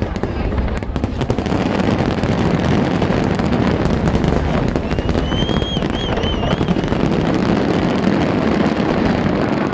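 Fireworks crackling and popping in a dense, continuous barrage. About halfway through, a warbling high whistle sounds for a second or two.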